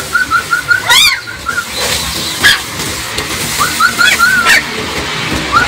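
Puppy whimpering from cover in quick runs of short, high yelps, with one louder rising squeal about a second in.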